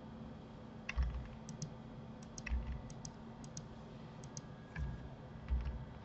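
Computer keyboard and mouse in use: four dull key strokes scattered through, with several pairs of light, sharp clicks in between.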